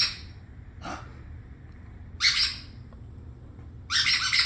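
Rubber squeaky dog toy being squeezed: a few short high squeaks, with a longer squeak near the end.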